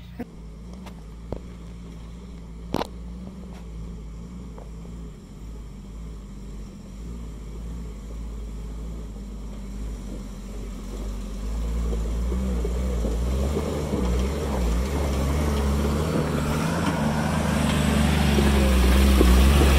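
Off-road 4x4's engine running at low speed while crawling over rocks, growing steadily louder through the second half as it comes closer and works harder. There are a few sharp knocks in the first three seconds.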